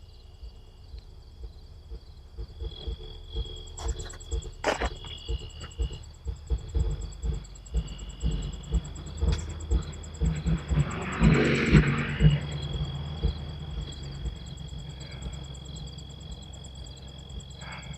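Bass-heavy music thumping from a passing car's stereo, growing louder to a peak a little past the middle as the car goes by, then fading. Crickets trill steadily throughout.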